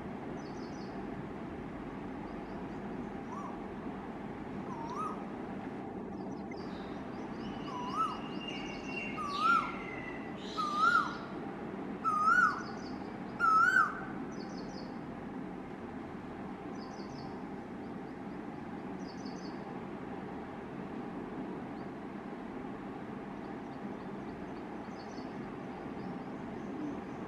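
Male Asian koel giving its repeated rising 'ko-el' call: seven calls that climb step by step in pitch and grow louder, the last few loudest, ending about halfway through. Other small birds chirp faintly and high throughout over a steady background hum.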